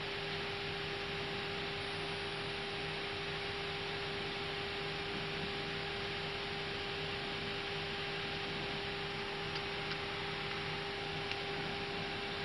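Airbus A320 cockpit ambience while holding for departure: a steady hiss with a constant electrical hum, unchanging throughout.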